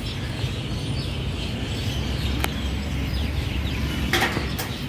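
Steady low rumble of outdoor street and car-park ambience while walking, with a sharp click about two and a half seconds in, a louder rustle or knock near the end, and faint high chirps.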